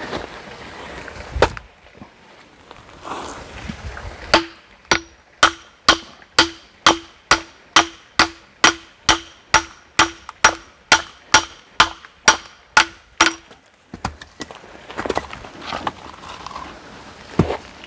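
A hatchet striking and splitting firewood in a steady run of about twenty blows, roughly two a second, each a sharp knock with a brief metallic ring. It is preceded by a single knock and followed by handling noise.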